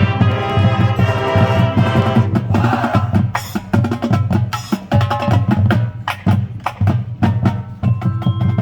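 High school marching band playing its field show, with many sharp percussion strikes over sustained band chords and a strong low bass line.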